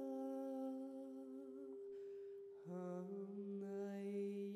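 Meditative background music: long hummed notes held over a steady drone, with a new note starting about halfway through.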